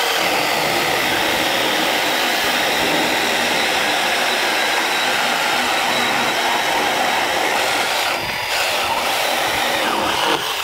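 Two cordless electric mini chainsaws, a 6-inch SEYVUM and a Milwaukee, running at full speed and cutting through a log at the same time, their chains ripping through the wood. The sound changes about eight seconds in as the cuts near completion, and both stop near the end.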